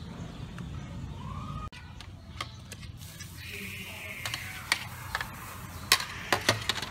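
Steel ladle clinking and scraping against a metal tray as fish pieces are pushed off it into a pot of water, a run of sharp clinks in the last three seconds, the loudest about six seconds in.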